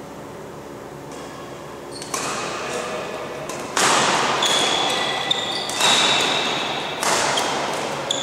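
Badminton rally in a sports hall: sharp racket strikes on the shuttlecock every second or two, each echoing around the hall, with shoes squeaking on the court floor. The first couple of seconds are quiet before play picks up.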